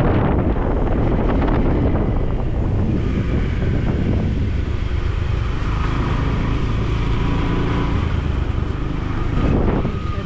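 A motor vehicle running with wind rushing over the microphone: a steady low rumble throughout, with a faint steady whine appearing about halfway through.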